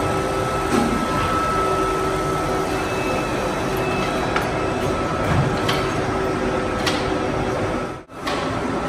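Metalworking machinery running steadily, with a faint steady whine and a few light clicks, cutting out briefly about eight seconds in.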